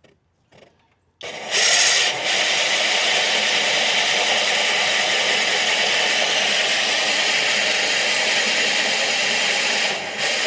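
Cordless drill driving a 5-inch Diablo hole saw through a CASTICO stone shower wall panel. It makes a steady grinding cutting sound that starts about a second in and is loudest and shrillest in its first second.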